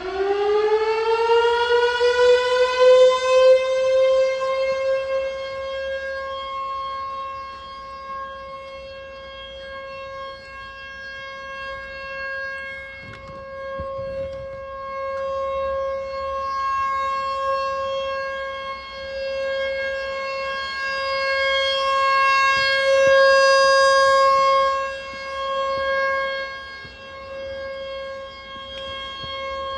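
American Signal T-128 outdoor warning siren sounding a test: it winds up in pitch over the first few seconds, then holds one steady wail that swells and fades in loudness as its rotating head turns, partly blocked by a building.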